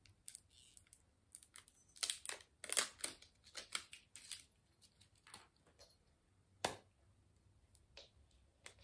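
Small clicks and brief rustles of a new lipstick being opened by hand: its plastic packaging and cap handled and pulled off, with a sharper click about two thirds of the way through.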